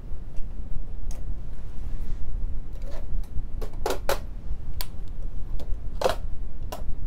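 Scattered light clicks and taps, about nine of them at irregular intervals, the loudest a quick pair about four seconds in and another about six seconds in, over a steady low hum.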